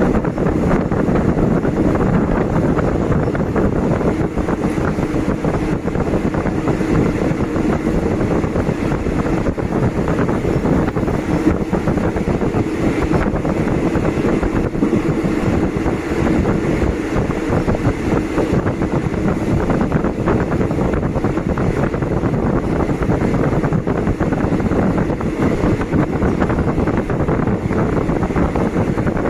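Steady running noise of a passenger train at speed, heard from inside the carriage: a continuous rumble of wheels on the rails with wind rushing over the microphone from the window.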